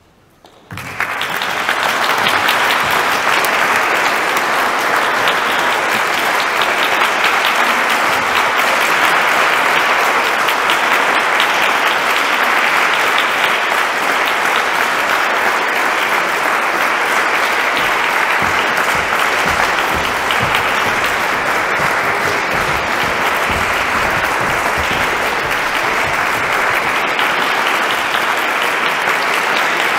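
Audience applauding: dense clapping from many hands, breaking out about a second in and then holding steady.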